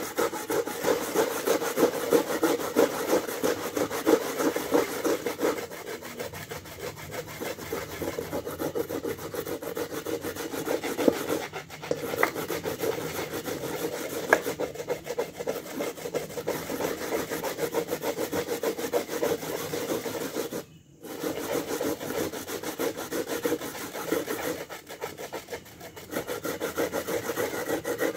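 Coconut being grated by hand on a grater board: quick, continuous rasping strokes, with a brief pause about three-quarters of the way through.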